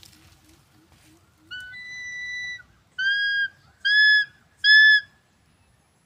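An eagle calling: four loud, clear whistled calls. The first is long and held on one note; the next three are shorter, about a second apart, each rising slightly and falling back.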